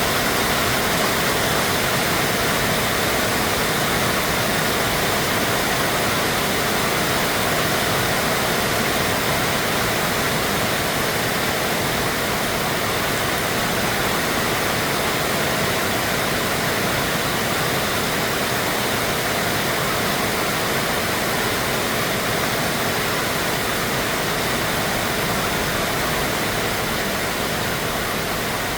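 Heavy rain falling: a loud, steady, even hiss without a break.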